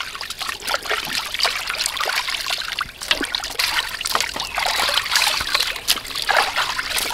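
Water splashing and trickling as raw chicken wings are rubbed and rinsed by hand in a metal basin, with wet wings dropped dripping onto a woven bamboo basket.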